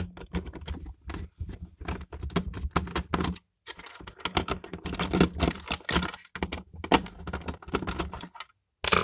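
Small hard plastic parts of an electric shower unit being handled and unclipped, a run of irregular clicks, knocks and rattles as the switch assembly is worked free of the casing.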